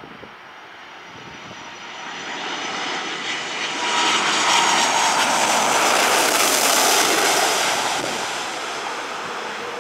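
Airbus A330's Rolls-Royce Trent 700 turbofans on final approach with gear down, passing low overhead: a jet roar with a high whine that swells to its loudest in the middle, then fades as the airliner moves away.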